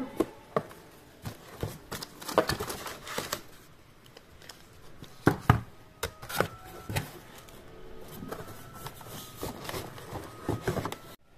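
Cardboard box and paper packaging being handled: rustling and scraping of cardboard, with scattered knocks and taps as parts are moved about.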